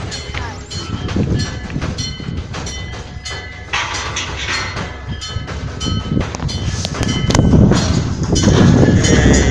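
Metal temple bell struck again and again at an uneven pace, about two strikes a second, each ring overlapping the next. A low rumbling background noise grows louder near the end.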